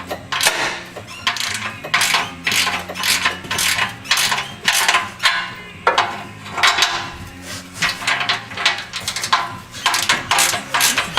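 Hand ratchet socket wrench clicking in repeated short strokes, tightening the nuts of an exhaust clamp.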